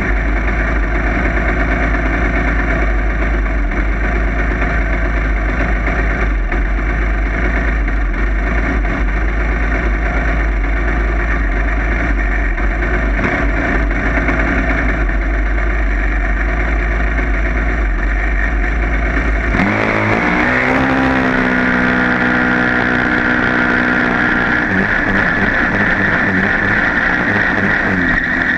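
Junior dragster's single-cylinder engine running steadily at the starting line; about twenty seconds in the car launches and the engine note climbs sharply to full throttle, with a high whine over it as the car accelerates down the track.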